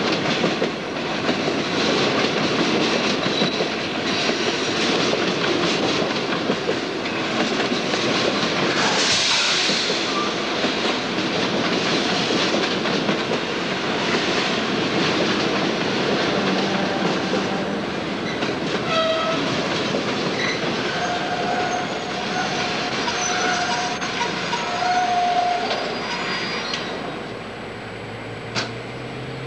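Freight cars rolling past on jointed track: steady wheel rumble and clatter. There is a short burst of hiss about a third of the way in, and a few faint drawn-out tones in the second half.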